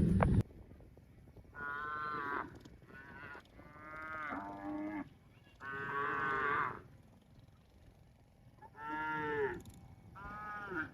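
Cattle mooing: about seven short calls in quick succession, some bending up and down in pitch, with brief pauses between. A louder sound cuts off suddenly about half a second in.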